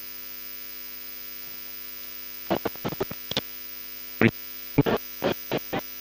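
Steady electrical mains hum. From about halfway through, a string of short, sharp clicks and knocks cuts in over it.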